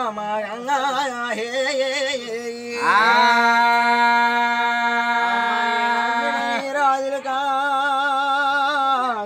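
A man singing a Telugu devotional song to the goddess Ganga in an ornamented, wavering melody. He slides up into one long held note about three seconds in and holds it until past six and a half seconds.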